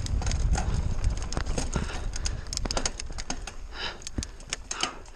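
Mountain bike rolling fast down a rough dirt trail: wind rumbling on the camera microphone, with a rapid rattle of clicks and knocks from the bike and the stony ground. The rumble and rattle ease off about halfway through as the bike slows.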